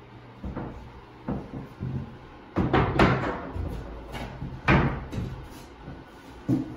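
Jeld-Wen prehung solid-core interior door and its jamb bumping and knocking against the rough opening as it is shifted into place. It makes a series of irregular wooden thuds and knocks, loudest about three seconds in and again near five seconds.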